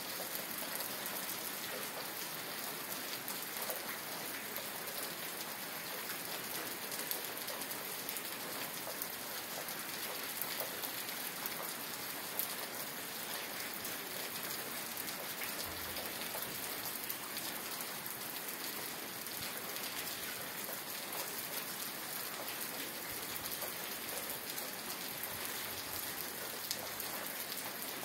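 Steady rain falling: an even hiss of drops that does not let up, with scattered sharper drop ticks.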